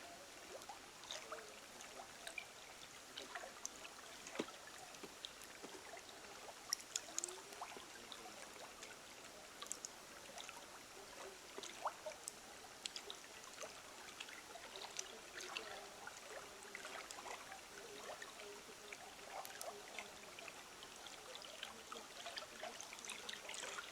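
Faint water trickling, with many small irregular drips and plinks.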